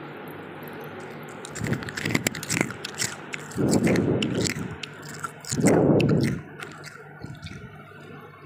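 Freezer frost being crunched and chewed close to the microphone: a run of crisp crackles, with two louder, longer crunching chews about halfway through.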